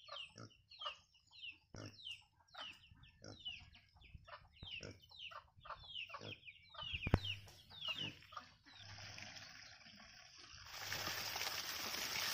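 Chickens calling with short, high, falling chirps, several a second, with one sharp knock about seven seconds in. Then, for the last few seconds, water from a tap starts running and splashing into a basket, louder near the end.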